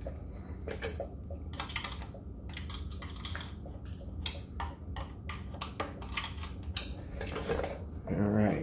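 Small metallic clicks and clinks at irregular intervals: a screwdriver prying and wiggling steel washers and spacers off an electric scooter's rear axle. A brief vocal sound comes near the end.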